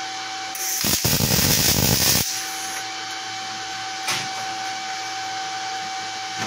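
MIG welder laying a tack weld: about a second and a half of dense, frying arc crackle, typical of short-circuit transfer with 0.9 mm wire at about 130 A and 18.3 V, which cuts off abruptly. It runs over a steady machine hum, and a single light click follows a couple of seconds later.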